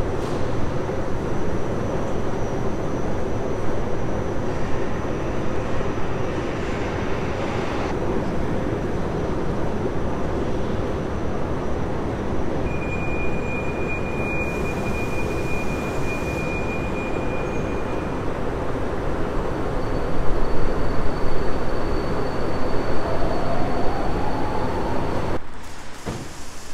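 Metro train noise in an underground station: a steady rumble with a thin high whine in the middle, then a whine climbing in pitch as the level rises, typical of an electric train's motors accelerating. It cuts off abruptly near the end to much quieter street sound.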